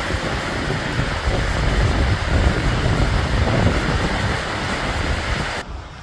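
Steady roar of a tall waterfall crashing down, with wind buffeting the microphone in uneven low rumbles; it cuts off suddenly near the end.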